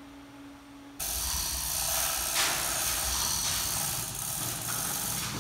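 A faint steady hum, then about a second in an overhead electric hoist starts running loud and steady, lifting the aluminum boat hull.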